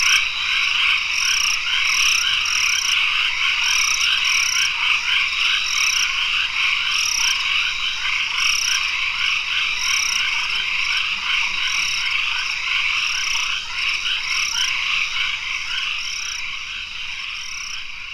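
Dense chorus of tropical forest frogs calling at dusk, a steady massed trilling with a higher call repeating about once a second. It eases down slightly toward the end.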